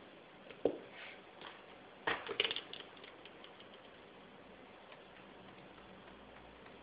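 Drawing tools handled on a desk: a sharp tap, then about a second later a short clatter of small clicks as the pencil is set down and a metal drawing compass is picked up, followed by a few faint ticks as the compass is adjusted.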